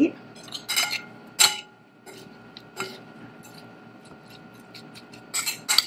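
Metal spoons clinking and scraping against a ceramic bowl while a shredded radish salad is tossed: a few sharp clicks about a second in and a quick cluster near the end.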